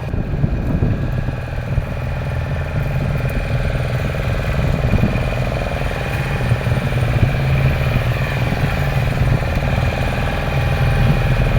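Fishing boat's engine running steadily at an even speed, a continuous low hum.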